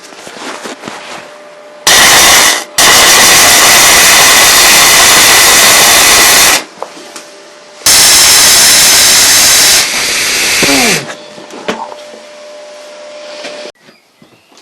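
Electric arc welding on a steel bulkhead: a loud, steady crackling hiss in three runs that start and stop abruptly, a short one about two seconds in, then one of about four seconds and one of about three, with quiet gaps between.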